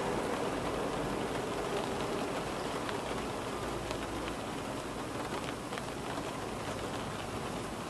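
Steady rain falling, with a few faint drop ticks.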